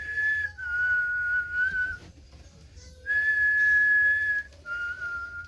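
A person whistling a two-note call, a high note then a slightly lower one, twice over, to get puppies to look up as a check that they can hear.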